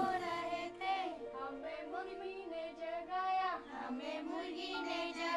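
A group of girls singing a song together, quietly.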